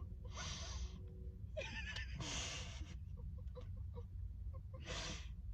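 Breathy sucking and slurping mouth noises from eating a jelly fruit candy: three short sucks, about half a second, two seconds and five seconds in. A steady low rumble runs underneath.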